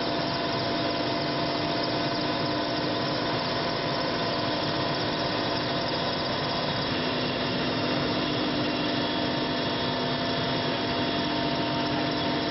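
Steady drone of an aircraft's engine heard from inside the cabin in flight, with several constant hum tones in it; one of them drops slightly in pitch about seven seconds in.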